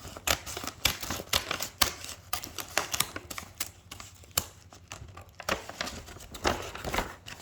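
Scissors snipping at toy packaging: a run of sharp, irregular clicks, several a second.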